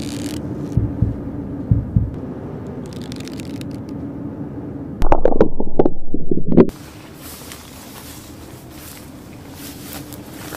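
Intro sound effects over a steady low drone: two pairs of deep thumps in the first two seconds, then about five seconds in a loud harsh burst whose top slides downward for over a second and cuts off suddenly, followed by a quieter stretch with scattered crackling clicks.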